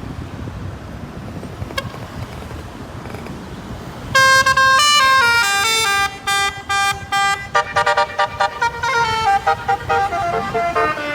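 Telolet basuri bus horn playing a tune: low traffic noise at first, then about four seconds in a run of loud horn notes stepping from pitch to pitch, which breaks into quick short toots.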